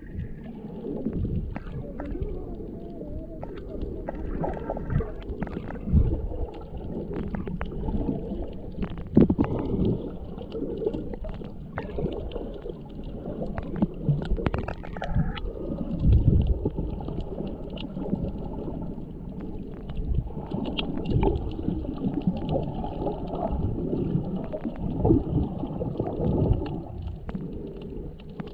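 Muffled underwater sound of shallow surf over a reef: a steady low rumble of surging water with scattered clicks, knocks and gurgles.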